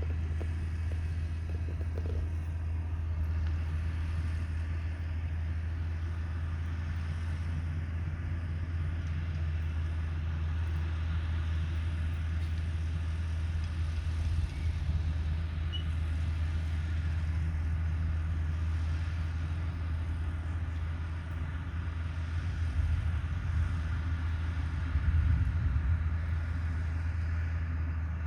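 Caterpillar 312B excavator's diesel engine running steadily with a deep drone, with a few louder surges near the end.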